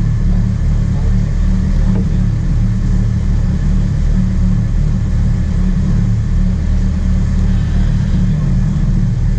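Sport-fishing charter boat's engine running at a steady drone, a constant low rumble.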